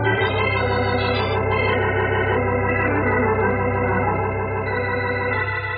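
Organ music bridge between radio-drama scenes: sustained chords held steadily, the chord changing near the end.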